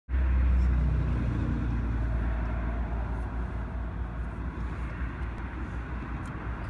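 Car running, heard from inside the cabin: a steady low rumble with a hiss of noise over it, a little louder at the start and easing slightly.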